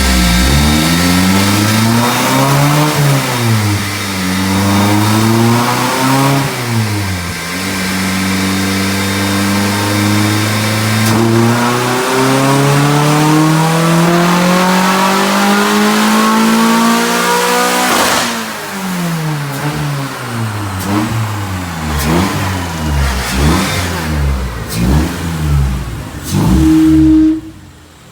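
Straight-piped Honda H22A4 2.2-litre four-cylinder engine being run on a chassis dyno. After two short revs it climbs steadily in revs for about ten seconds in a full dyno pull, and the revs drop off suddenly at the top. That is followed by a string of quick rev blips.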